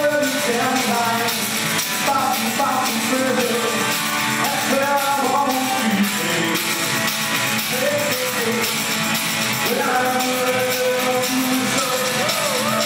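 Live band playing a country-blues song: acoustic guitar with a man singing into a microphone, in a hall with some room echo.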